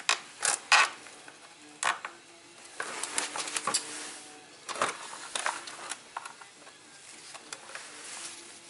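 Sharp plastic clicks, creaks and scrapes from a fuel pump module's electrical connector and its black locking clip, worked by gloved hands to free the connector. Several clicks come in the first second, then a busier run of clicking and rattling around the middle, fading to lighter handling noise.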